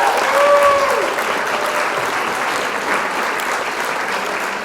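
Crowd applause and cheering with a few whoops in the first second, cutting off abruptly: an applause sound effect laid over the footage.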